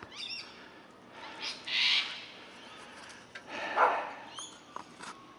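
Several harsh bird squawks and calls, the loudest about two seconds in.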